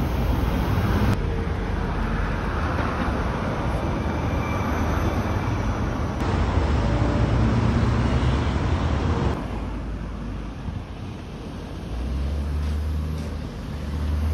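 City street traffic noise: a steady rumble and hiss of passing road vehicles, changing abruptly a few times and dropping in level about two-thirds of the way through.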